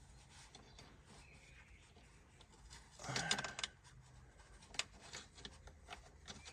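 Faint clicking and rubbing of hand tools and small metal parts as detent springs are pulled out of a truck transmission's shift housing. There is a brief louder scrape about three seconds in and a sharp click a little later.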